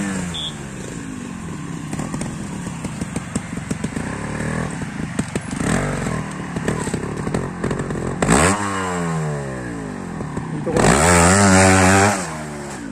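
Trials motorcycle engine ticking over with small throttle blips, then a sharp rev about eight seconds in that falls away. It is revved hard and held for about a second near the end as the bike climbs the rock slope, then cut back.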